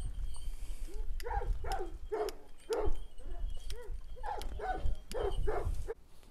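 A Kangal shepherd dog barking repeatedly, about two barks a second, over a low rumble; both stop shortly before the end.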